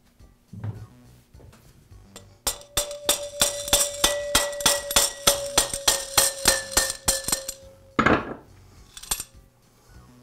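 A mallet tapping the spindle shaft of a Jet drill press into its new ball bearing in the quill, about four quick taps a second for several seconds. Each tap sets the steel quill and shaft ringing with a steady metallic tone. One heavier knock follows near the end.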